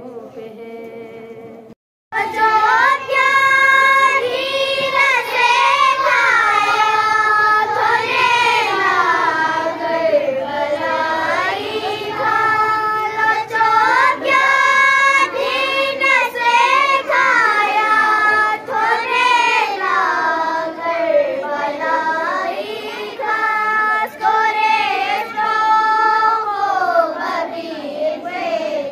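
Schoolgirls singing a naat, a devotional poem in praise of the Prophet, into a microphone in a single melodic line with long gliding notes. The singing starts about two seconds in, after a brief break in the sound.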